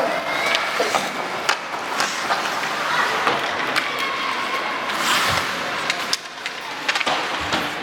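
Ice hockey play: a steady hiss of skates on the ice with sharp clacks of sticks and puck scattered throughout.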